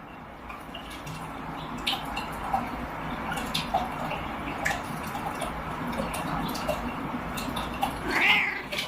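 Running water with dripping and small splashes, growing slightly louder, with a short louder sound near the end.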